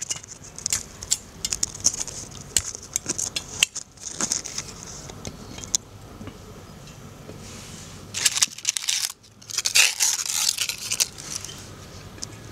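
Dry crackling and rustling close to the microphone, with scattered sharp clicks through the first half and two louder rustling bursts in the second half, as dry plant material is waved and handled by hand.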